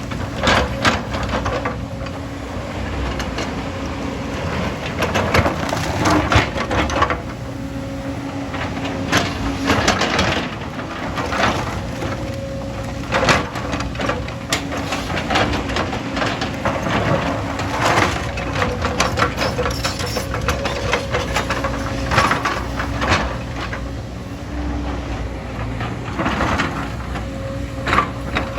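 Heavy earthmoving machine at work on a road build: its diesel engine running steadily under many irregular cracks and crunches of rock and soil being pushed or dug.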